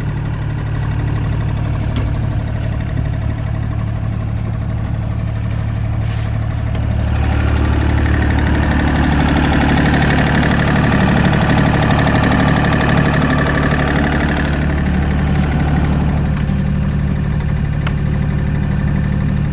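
Yanmar diesel generator set running steadily just after start-up. The engine note grows louder and fuller for several seconds in the middle while a canopy side door stands open on the engine, then drops back.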